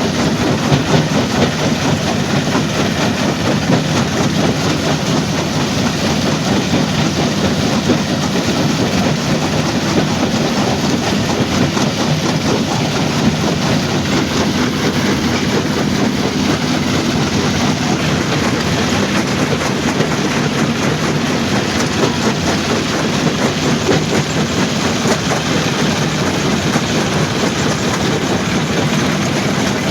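Stone crushing plant machinery running steadily, a continuous dense rattle over a low hum.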